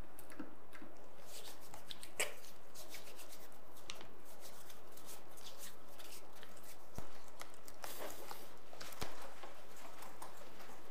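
Hands rubbing together, working in sanitizer gel, with many small clicks and rustles. A few soft thumps come later, about seven and nine seconds in.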